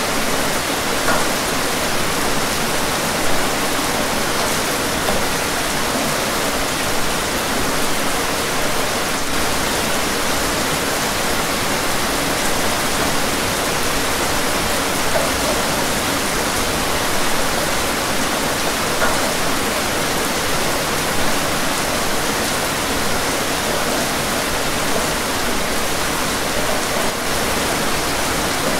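Steady rain falling on window glass, a dense, even hiss.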